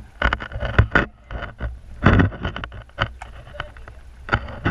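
Muffled underwater noise picked up by a submerged camera: irregular bubbling and splashing bursts and sharp clicks from snorkelers moving in the water, over a low steady rumble.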